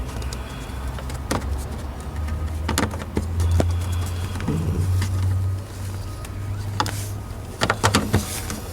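Scattered clicks and knocks of hands working plastic headlight parts, fitting the bulb's cover cap into place, over a steady low hum.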